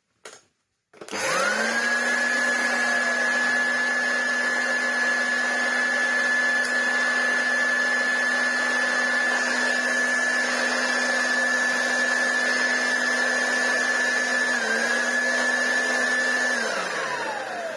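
Hoover Junior U1104 upright vacuum cleaner's motor switched on for its first run after long disuse. It spins up with a rising whine about a second in and runs at a steady high whine. Near the end it dips briefly, then is switched off and winds down with a falling whine.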